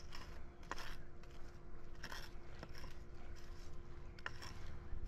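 Small flat hand tool scraped across the sand bedding for pavers, leveling it: a handful of short, separate scrapes over a steady low background noise with a faint hum.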